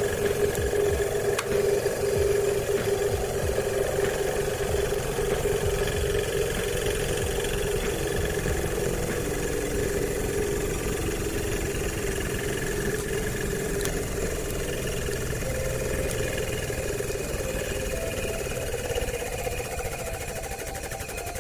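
Hydraulic press pump motor running with a steady hum as the ram squashes a plastic gum container, its pitch dropping slightly about eight seconds in. A couple of faint sharp clicks come through, near the start and about two-thirds of the way in.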